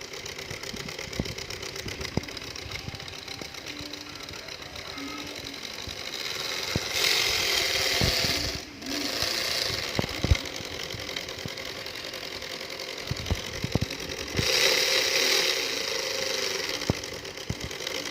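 Diesel railway locomotive engine running steadily as it warms up. Two bursts of hissing come about seven and fourteen seconds in, each lasting a second or two, with scattered knocks throughout.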